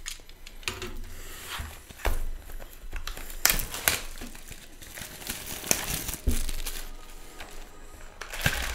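Clear plastic shrink wrap being torn and peeled off a cardboard hockey card box, crinkling and crackling, with a few sharper crackles as it is pulled away.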